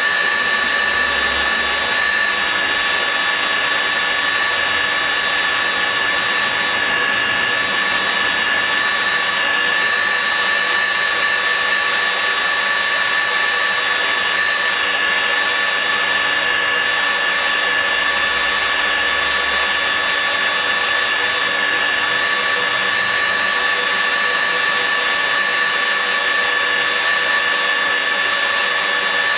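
Nitto WA-5000 magnetic drill running steadily, its motor giving a constant high whine.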